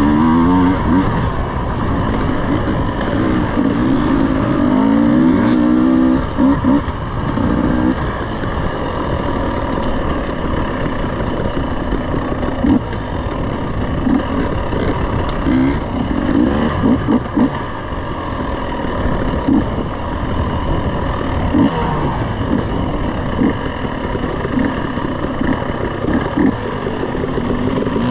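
Husqvarna 300 two-stroke enduro dirt bike running on a rough trail, its engine revving up and down with the throttle, strongest in the first few seconds. A constant rushing noise sits under it, and short knocks come now and then as the bike rides over rocks and bumps.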